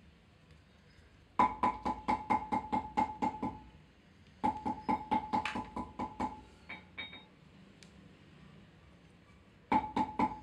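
Background music: runs of quick repeated percussive notes, about five a second, on the same pitches, coming in about a second and a half in, breaking off twice and starting again near the end.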